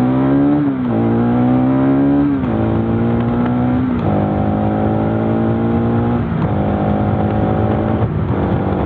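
Bajaj Pulsar NS200 single-cylinder motorcycle engine accelerating hard through the gears. The engine note climbs and drops sharply at each of about five upshifts.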